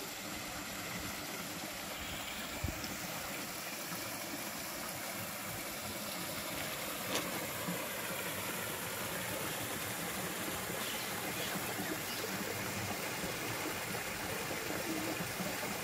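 Steady rush of a stream running between rocks, with two faint knocks.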